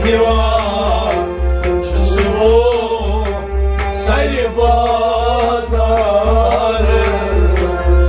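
Harmonium accompanying a man singing a kalam (devotional song), over a steady beat of low hand-drum strokes.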